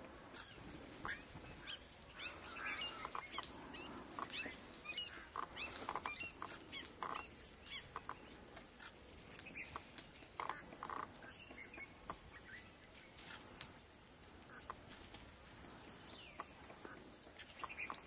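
Fairly faint, scattered bird calls and chirps from a mixed flock feeding on the ground: many short, sharp notes, several sliding down in pitch, coming irregularly one after another.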